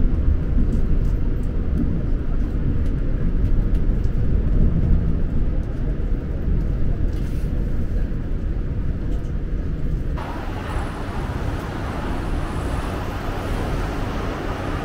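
Steady low rumble of a suspended monorail car heard from inside the cabin while it runs. About ten seconds in it cuts suddenly to brighter outdoor street traffic noise.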